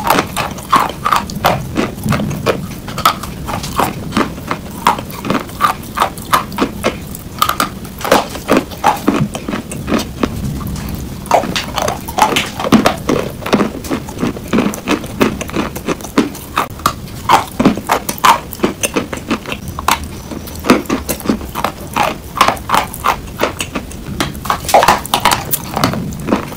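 A dry chalk block being bitten and chewed: many sharp crunches in quick, irregular runs, several a second.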